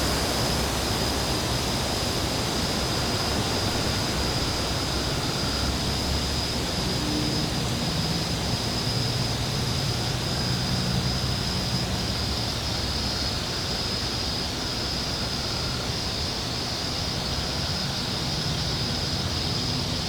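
Steady wind blowing, an even rushing hiss, with a thin steady high-pitched tone over it and a low engine-like drone that comes and goes in the second half.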